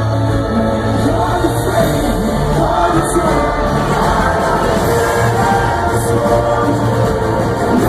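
Live metalcore band playing loud and steady, heavy distorted guitars, bass and drums, with a crowd singing along.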